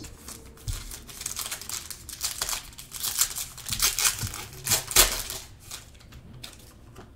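Gold foil wrapper of a Panini Gold Standard football card pack being torn open and crinkled by hand: a run of sharp crackles and rips that dies down about five and a half seconds in.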